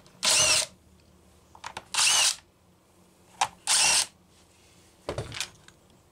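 Cordless driver spinning out the starter-cover screws of a Homelite XL chainsaw: three short bursts of about half a second each, with the motor's whine rising in each. About five seconds in, a short clatter as the plastic starter housing is lifted off.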